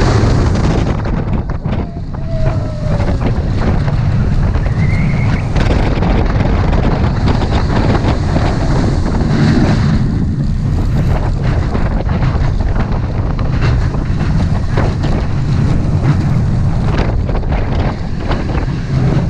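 Wind buffeting the microphone: a steady low rumble with occasional knocks.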